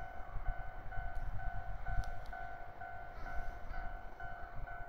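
Railway level crossing warning bell ringing, an electronic two-tone note repeating about twice a second, over a low uneven rumble.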